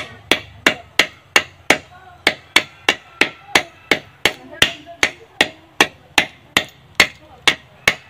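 A machete blade striking a husked coconut's hard shell over and over, a steady run of sharp knocks a little under three a second, chipping the shell away.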